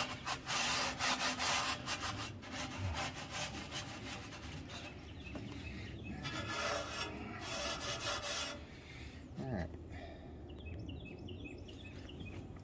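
Steel wool scrubbing soapy bare steel inside an Old Country Wrangler offset smoker's firebox, in repeated scratchy strokes that stripped off the factory grease coating. The scrubbing fades out about eight or nine seconds in.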